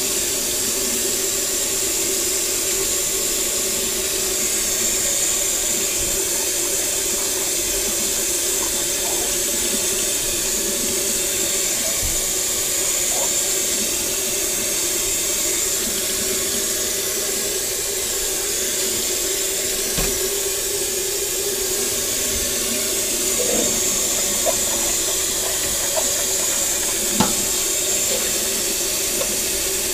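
Kitchen faucet running steadily into a stainless-steel sink, the stream splashing over dishes held under it as they are hand-washed. A few light knocks of dishware in the second half.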